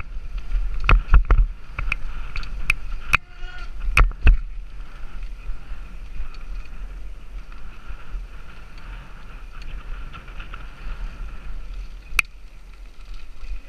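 Mountain bike riding fast down a dirt trail, heard from a helmet camera: a steady low rush of wind and tyre rumble, with a run of sharp clicks and knocks as the bike rattles over bumps in the first few seconds and one more sharp knock near the end.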